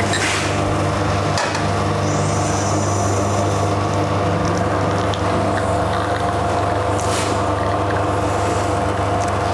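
Espresso machine pump running steadily with an even hum during a shot extraction.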